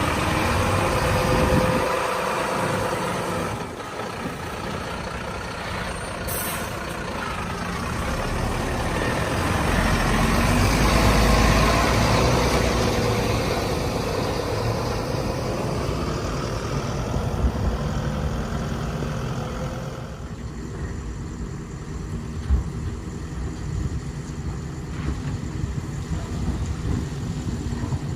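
Heavy diesel engine of earthmoving machinery running and revving up and down, loudest about ten to twelve seconds in. A short high hiss comes about six seconds in, and a single sharp knock later on.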